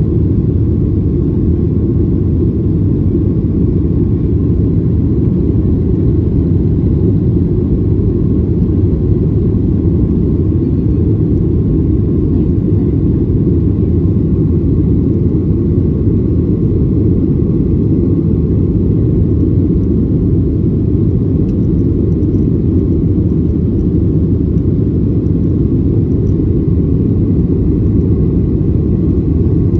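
Jet airliner cabin noise during the climb after takeoff: the engines and rushing air heard from a window seat as a steady, deep, even noise that does not change.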